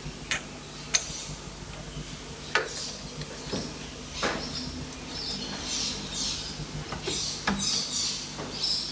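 Scattered clicks and knocks, about five in all, of metal parts being handled as an aluminium disc is set into a metal lathe's chuck against the tailstock centre, over a low steady hum. High chirping sounds in the background from about halfway.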